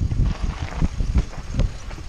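Wind buffeting a bike-mounted or body-worn microphone while a mountain bike clatters over rough trail, with irregular low thumps and knocks.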